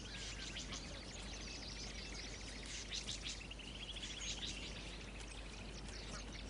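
Outdoor natural ambience of birds chirping and calling, with fast trilling series of ticks, over a steady low background hum.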